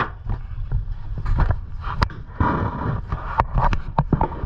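Freshly landed red snapper flopping on a boat deck: irregular sharp knocks and slaps, over a steady low rumble.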